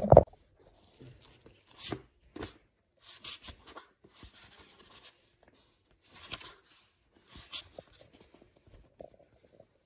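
Paper pages of a paperback book being turned by hand: a series of short, soft rustles and flicks.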